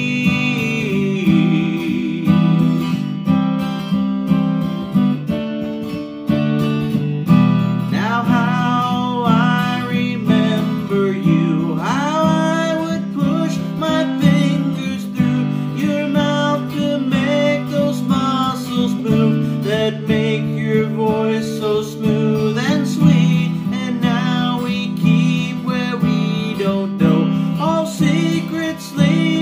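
Acoustic guitar strummed in a steady chord pattern, with a man's voice singing a wordless melody that slides up and down between notes.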